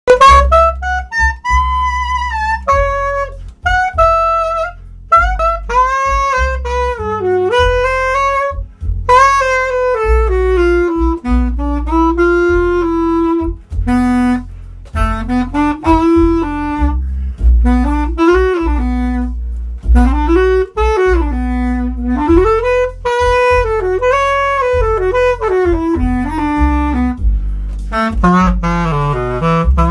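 Bass clarinet improvising a blues line in its upper register: quick runs at first, then notes that bend and arch in pitch, with short breaths between phrases. A steady low sound runs underneath, and near the end the line drops into the instrument's low range.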